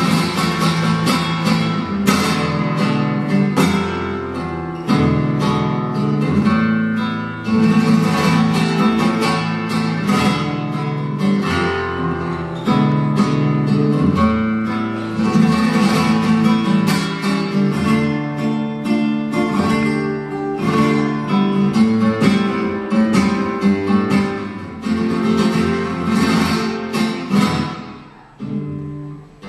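Flamenco guitar playing a fantasia, mixing strummed chords with picked notes; the playing drops away briefly near the end.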